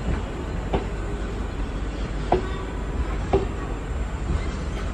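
MEMU electric multiple-unit train rolling along: a steady rumble of the coaches with a few sharp wheel clicks over the rail joints.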